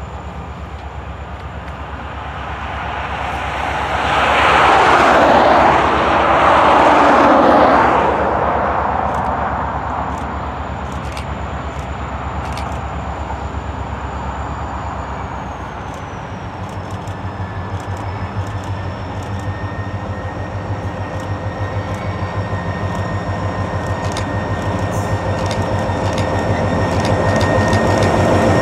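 Four-axle diesel locomotive hauling a freight train on an approach, its engine a steady low throb with a whine that sets in and grows louder as it nears, and light clicks from the wheels. A louder rushing sound swells and falls away between about four and eight seconds in.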